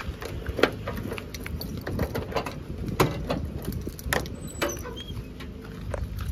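Irregular clicks, clinks and knocks of hard objects being handled and moved about, as in rummaging through supplies for a bottle of brake fluid.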